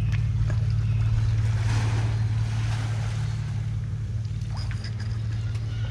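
Steady low drone of a boat engine running close by, with a few faint clicks over it.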